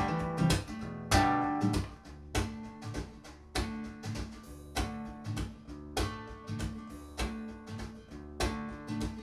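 Acoustic guitar playing an instrumental passage of a song, plucked notes about twice a second, reproduced by Epos ES11 bookshelf speakers and recorded in the listening room.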